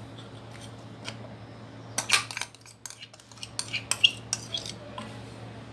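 Metal spoon clinking against a bowl while thick yogurt is beaten. The clinks come in a quick, irregular run in the middle, over a faint low hum.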